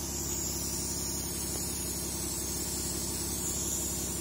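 Liquid sprayed in a steady hissing stream onto a split in a car tyre's tread, over a low steady hum.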